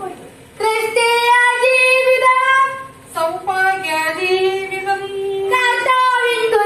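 A boy and a woman singing in turn into a handheld microphone, in long held notes, with a short break about three seconds in.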